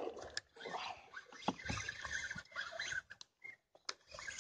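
Spinning fishing reel being cranked in uneven spurts, its gears whirring, with sharp clicks and knocks from handling the rod and reel.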